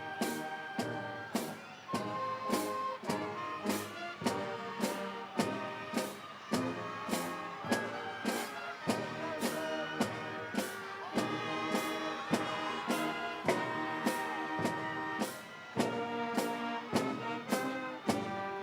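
Band music led by brass, with held notes over a steady drum beat of a little under two strokes a second.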